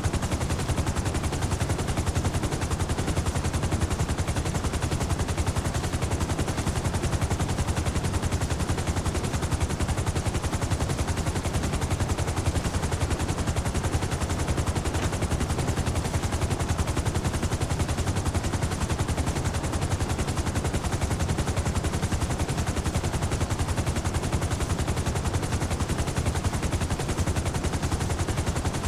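Helicopter in flight, its rotor blades chopping in a fast, steady beat over a deep rumble, with no change in level throughout.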